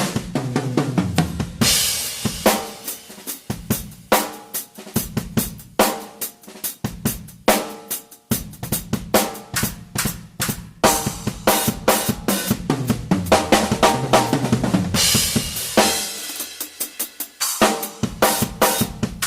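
Acoustic drum kit played solo in fast fills: rapid snare and tom strokes with bass drum, hi-hat and crash cymbals ringing out at intervals.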